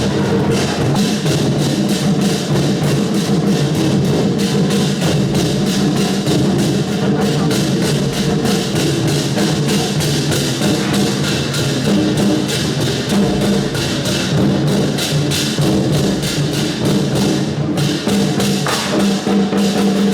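Loud percussion-driven procession music: drums and other struck percussion at a fast, steady beat over held instrument tones.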